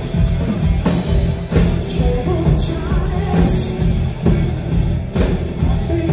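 Live rock band playing at full volume: drum kit, electric guitars, bass and keyboards, with a lead vocal singing over them.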